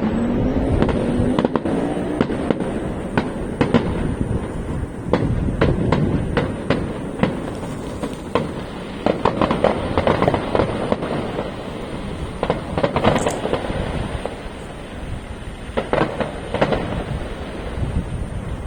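Aerial fireworks going off in quick succession: many sharp bangs over continuous crackling, with a rising whistle in the first two seconds.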